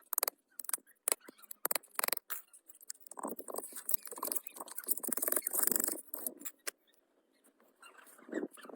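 Hand work on small parts: a rapid series of clicks and knocks, with a stretch of scraping in the middle.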